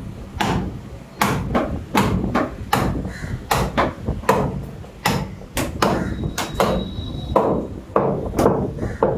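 Heavy butcher's cleaver chopping through beef ribs on a wooden block: a run of sharp chops, about two a second.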